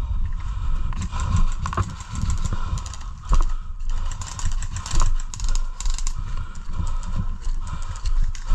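Footsteps on a muddy track with load-bearing webbing and kit knocking and rustling close to a body-worn action camera: an irregular string of thuds and clicks over a low rumble of movement.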